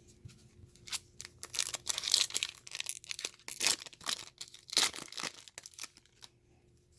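Foil wrapper of a trading-card pack being torn open and crinkled by hand: irregular crackling rips and rustles.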